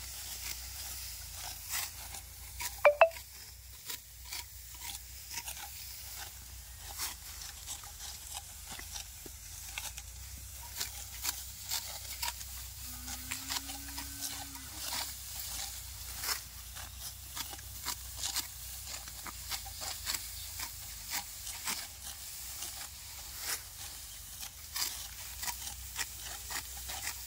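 Ripe, dry rice stalks being cut by hand at the base, with many short, crisp crackling snips and rustles of straw. About three seconds in there are two sharp, loud snaps with a brief ringing tone.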